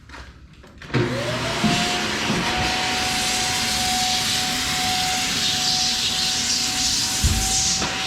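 Shark Vertex vacuum cleaner switched on about a second in: the motor whine rises quickly, then it runs steadily with a constant whine over a loud rush of air.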